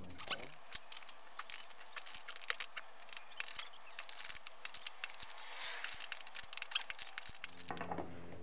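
Hand ratchet wrench clicking in quick, irregular runs as a loosened nut on a front air-strut assembly is wound off.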